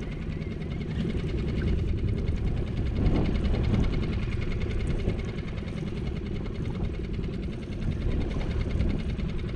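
Fishing reel being cranked against a fish on a bent rod, giving a fast, even mechanical whir and tick, over a steady low wind rumble on the microphone.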